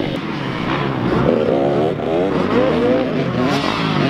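Super Mini dirt bike engine revving, its pitch climbing and falling several times as the throttle is opened and closed.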